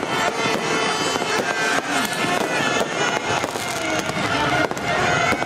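New Year fireworks going off continuously, a dense run of cracks and bangs, with music playing underneath.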